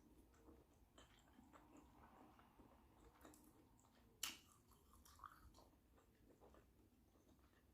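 Faint chewing and wet mouth sounds of a person eating shrimp boil, with one sharper click about four seconds in.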